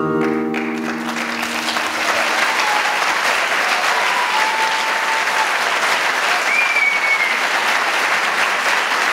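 A theatre audience applauding, the clapping swelling in as the final flamenco guitar chord rings out and fades in the first second or so. A few voices call out briefly amid the steady clapping.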